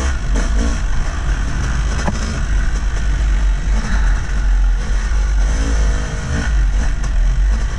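Yamaha YZ250 two-stroke dirt bike engine being ridden on a trail, revving up and down as the throttle is worked, over a heavy, constant rumble.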